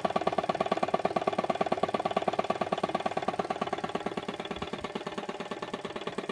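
Motivair piston air compressor running, driven by its 1 hp replacement electric motor, the pump beating in a rapid, steady pulse.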